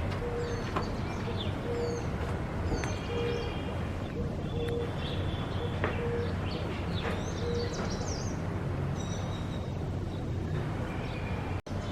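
Black kite giving shrill whistled calls, mixed with chirps of other birds, over a steady low background hum.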